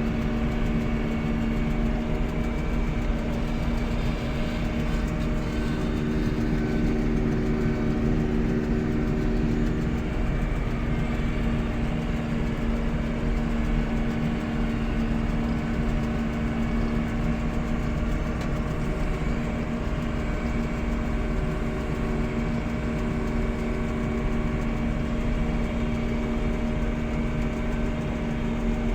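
Farm harvesting machinery's engine running steadily, a constant droning hum with an even low rumble that holds at one pitch throughout.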